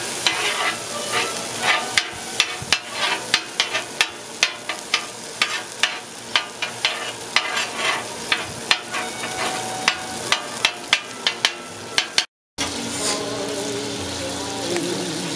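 Noodles and bacon sizzling on a Blackstone flat-top steel griddle while a metal spatula clacks and scrapes against the griddle surface, two or three clacks a second. After a brief dropout near the end, the clacking stops and only the steady sizzle remains.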